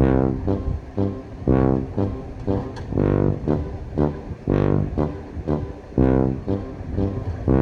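Background music: deep pitched notes struck on a slow, steady beat, about one every second and a half.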